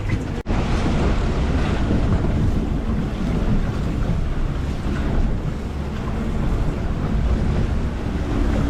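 Boat under way at trolling speed: a steady low rumble of the engine and water rushing along the hull, with wind buffeting the microphone. The sound cuts out for an instant about half a second in.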